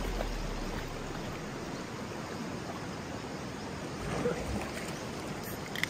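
Shallow mountain stream flowing over rocks: a steady rush of water.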